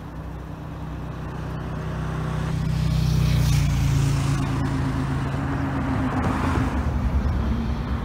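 A motor vehicle's engine running, its low hum growing louder over the first few seconds and then holding steady.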